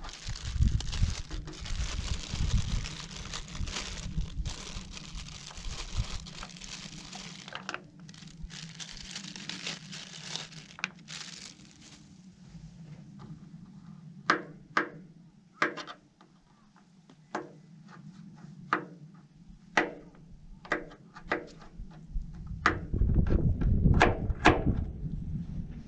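Kitchen knife chopping vegetables on a plastic cutting board: sharp taps, roughly one a second, through the second half. Rustling and a low rumble fill the first half and come back near the end.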